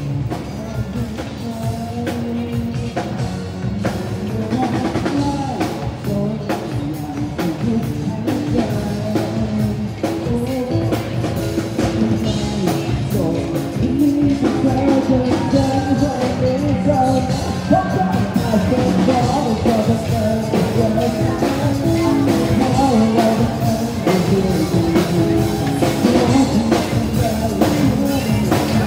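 Rock-style music with singing and a drum kit, getting louder about halfway through.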